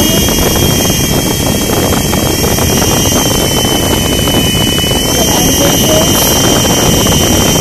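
Toy infrared RC helicopter's small electric motors and rotor blades running at speed while it is held down on a table: a loud, steady whirring with a high motor whine that edges up slightly about five seconds in.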